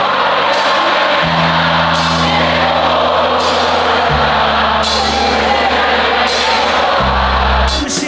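Live band playing loudly at a concert: held low bass and keyboard notes change every few seconds under a steady beat, while a large crowd sings and cheers along. The music cuts off just before the end.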